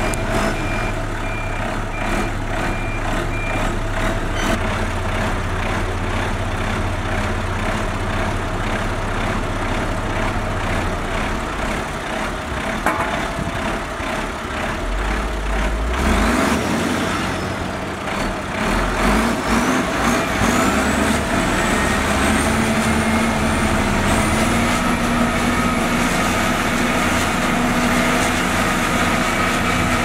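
Diesel engines of heavy road-building machines running under work. A reversing alarm beeps in the first few seconds. From about halfway through, an engine rises in pitch as it revs up and then holds at the higher speed.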